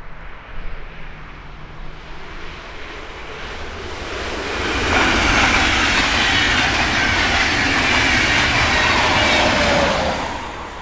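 Deutsche Bahn InterCity train passing at speed: the rush of wheels on the rails builds from about two seconds in, stays loud for about five seconds with a faint high whine falling slightly in pitch, then drops away near the end.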